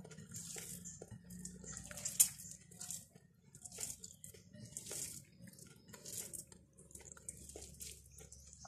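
Fingers mashing and mixing rice with dal on a plate: soft wet squishing strokes about once a second, with one sharp click about two seconds in.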